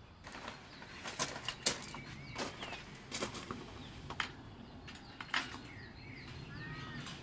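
Small birds chirping, with a short repeated arching call near the end, over irregular sharp taps and a low steady outdoor background.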